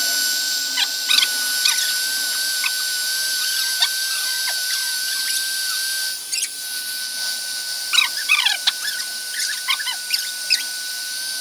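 Handheld hair dryer running steadily, a high whine over an airy hiss. Over it, a Pomeranian puppy gives short high squeaks and whimpers, with a cluster about eight seconds in.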